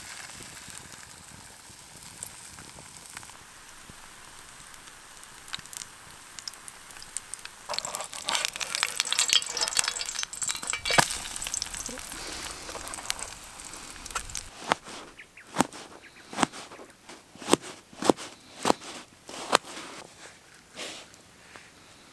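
Pancake batter sizzling in an oiled frying pan over a campfire: a steady hiss that grows louder and crackles for several seconds in the middle. Over the last several seconds a run of separate sharp clicks and knocks.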